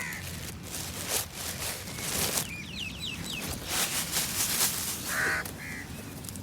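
Crows gathering: a harsh caw about five seconds in, followed by a shorter one, among scattered short rustling noises. A quick run of four or five high chirps from a smaller bird sounds near the middle.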